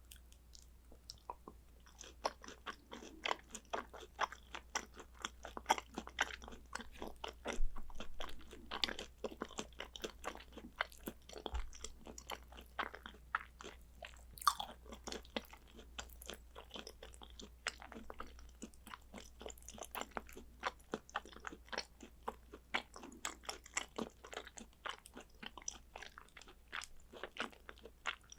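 A person chewing food close to the microphone: a dense run of small, quick mouth clicks and bites that picks up about two seconds in and keeps on.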